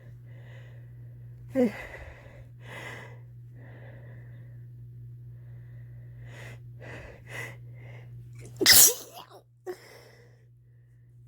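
A person with a head cold stifling sneezes: catching breaths and a sharp stifled sneeze about one and a half seconds in, then a run of quick catching breaths leading up to the loudest stifled sneeze, near nine seconds in, and one small one after it.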